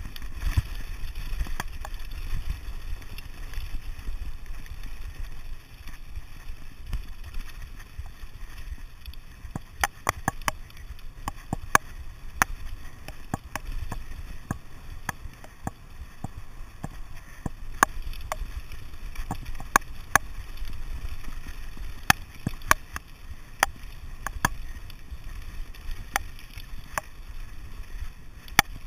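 Mountain bike running fast down a gravel and stone track, with a steady low wind rumble on the microphone. From about ten seconds in, frequent sharp, irregular clicks and clatters as the bike rattles over the stones.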